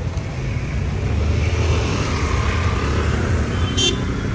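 Road traffic going by: car and scooter engines and tyres, swelling in the middle as a vehicle passes close. A brief high-pitched beep comes near the end.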